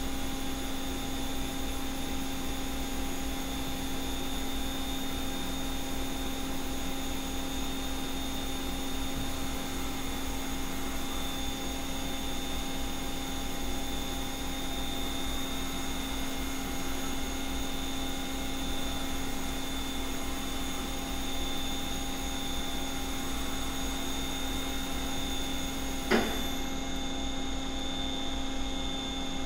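Doosan Puma 300C CNC lathe's gear-head spindle running, a steady machine hum with a high whine. Near the end there is one sharp click, the high hiss drops away, and the spindle comes to rest.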